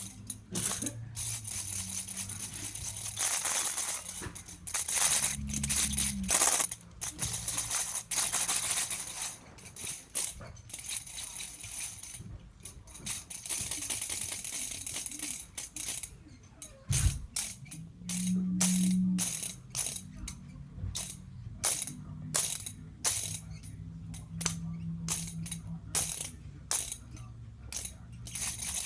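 Rattling that stops and starts, in short bursts and longer runs.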